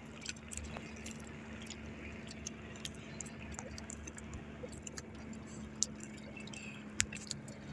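Quiet sounds in a small outrigger fishing boat: scattered small clicks and taps and light water sounds over a faint low steady hum.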